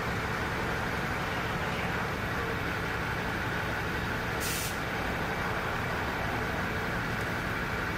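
Steady vehicle and traffic noise with a low hum, and one brief hiss about four and a half seconds in.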